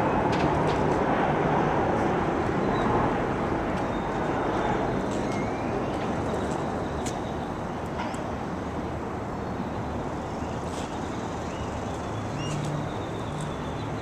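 Steady urban outdoor background noise, a traffic-like rumble and hiss, with a few faint scattered clicks.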